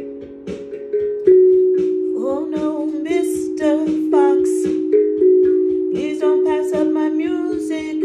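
A steel tongue drum struck with mallets, each strike leaving a ringing note that overlaps the next in a slow, calm melody. From about two seconds in, a voice sings along without clear words.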